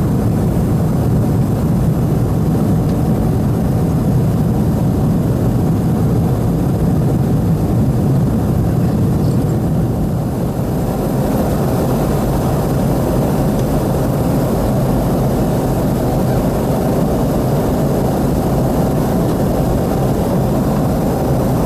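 Steady cabin drone of a Boeing 717 climbing after takeoff: its two rear-mounted Rolls-Royce BR715 turbofans and the rush of air over the fuselage, heard from inside the passenger cabin.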